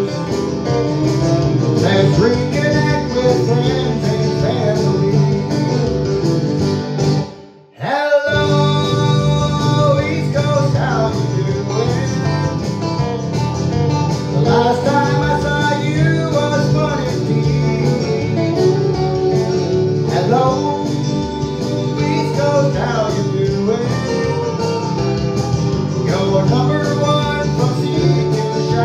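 Country song: a man singing into a microphone over recorded accompaniment with guitar. About seven seconds in the sound fades out for about a second and comes back abruptly.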